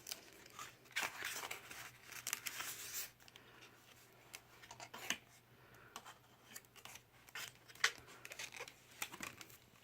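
Stiff card flaps and pages of a lift-the-flap book being handled, opened and turned: a run of crisp, irregular papery clicks and rustles, loudest about a second in, around three and five seconds in, and near eight seconds.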